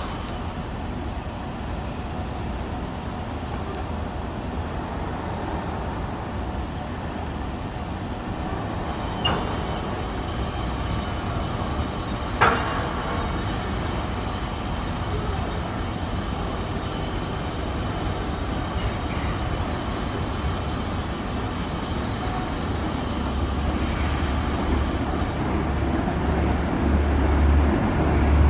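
Steady rail-yard and city background noise, then an electric Renfe Cercanías commuter train approaching, its low rumble growing louder over the last few seconds. Two sharp clicks stand out in the middle.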